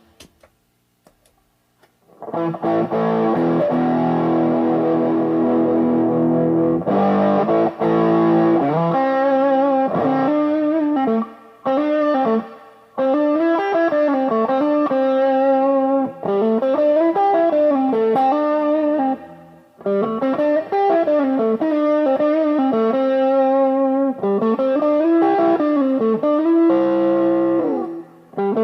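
Washburn MG-300 electric guitar played with an overdriven tone. After a short silence come sustained ringing chords, then from about a third of the way in a lead line of notes bent up and down in pitch, broken by short pauses.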